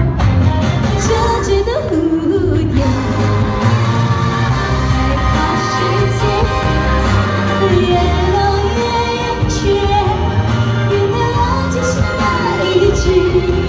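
A pop song with singing: a melody line bends over a steady bass and beat.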